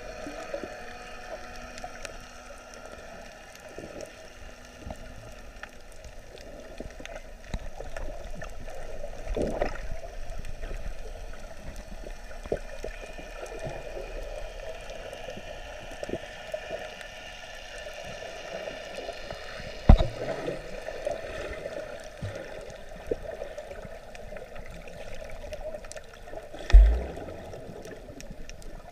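Muffled underwater ambience from a submerged camera: a steady watery rush with scattered faint clicks. Two sharp thumps stand out, about two-thirds of the way in and again near the end.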